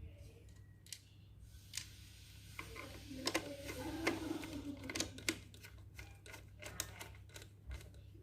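Irregular clicks and light taps of small plastic parts being handled, busiest in the middle, over a steady low hum.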